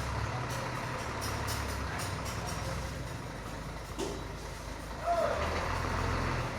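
Diesel engine of a Hino tronton truck running low and steady as the loaded truck manoeuvres slowly. There is a knock about four seconds in and a short rising-and-falling call about five seconds in.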